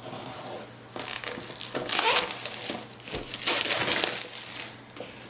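Plastic shrink-wrap on an iPad Air box being cut and torn away, crinkling in two long stretches.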